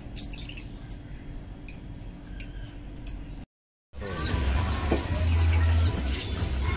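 Small caged birds chirping: a few faint, scattered high chirps, then after a brief drop to silence, a loud, dense chorus of many small birds chirping at once over a low hum.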